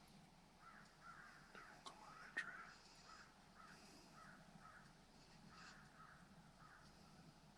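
Near silence with faint, repeated short bird calls throughout and a single small click about two and a half seconds in.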